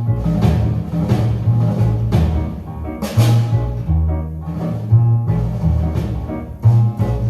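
Recorded music played through Bose 701 loudspeakers: a prominent bass line of shifting low notes with drums, and a bright crash about three seconds in.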